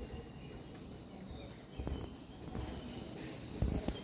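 Forest ambience in mist: faint, short high-pitched chirps from insects and birds over a steady background hiss. Low rumbling bumps come about two seconds in and again near the end.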